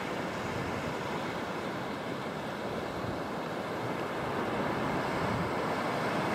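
Small waves washing onto a shallow, flat sandy beach: a steady hiss of surf, with some wind, growing a little louder over the last couple of seconds.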